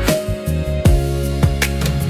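Background music: held synth or instrument chords over a steady drum beat, roughly two hits a second.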